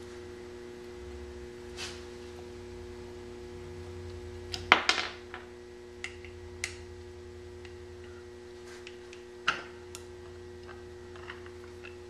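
Scattered light clicks and knocks of a metal tailwheel fork and its axle bushings being handled and fitted onto a bushwheel, loudest in a short cluster about halfway through, over a steady electrical hum.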